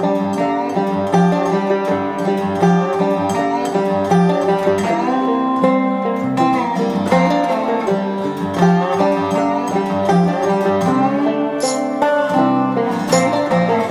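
Outro background music led by plucked strings, guitar and banjo, with a steady beat.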